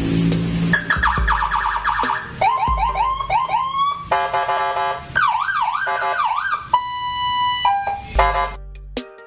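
Electronic police-escort siren for a motorcycle (five-tone module, 15-watt speaker) stepping through its tones: a fast warble, four rising whoops, a steady multi-tone horn blast, an up-and-down wail, a single steady beep, then another horn blast. Background music with a beat plays underneath.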